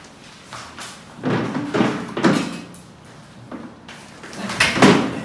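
A door slamming, with several knocks and thumps, the loudest near the end.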